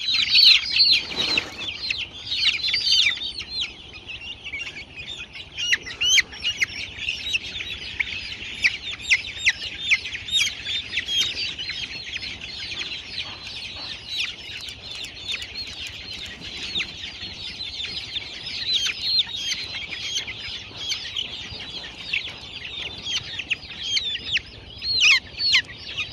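A flock of poultry-farm chickens calling together: many short, high-pitched peeps overlapping in a constant chatter, louder in the first few seconds and again near the end.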